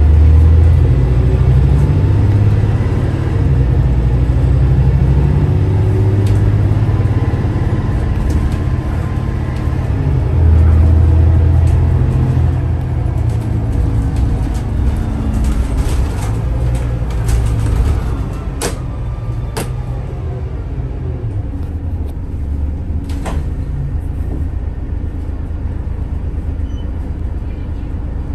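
Volvo B8RLEA bus's six-cylinder diesel engine pulling hard under acceleration, its pitch climbing and stepping as the ZF EcoLife automatic gearbox changes gear. After about eighteen seconds the engine eases off to a quieter steady run, with a few sharp clicks.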